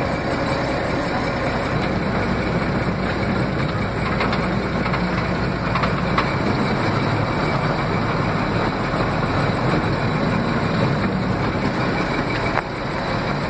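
Panzer 38(t) tank's engine running steadily, heard from on board the tank.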